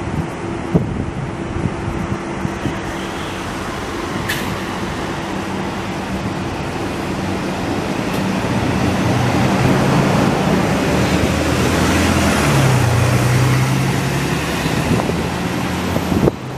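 Mercedes-Benz O530 Citaro city bus's diesel engine running as the bus drives past, growing louder toward the middle. The engine note shifts pitch about three-quarters of the way through.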